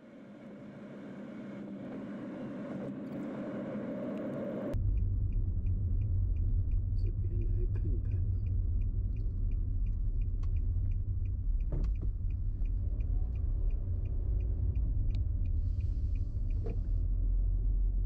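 Car driving, heard from inside: a rushing road noise that fades in, then cuts sharply a few seconds in to a steady low rumble. A light, even ticking of about two or three a second runs over the rumble.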